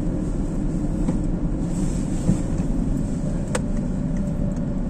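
Car interior noise while driving: a steady low rumble of engine and road heard inside the cabin, with a single sharp click about three and a half seconds in.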